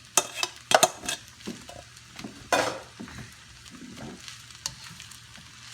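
A cooking utensil scraping and clinking in a hot pan while fried rice is stirred, several sharp knocks and scrapes in the first few seconds over a low sizzle.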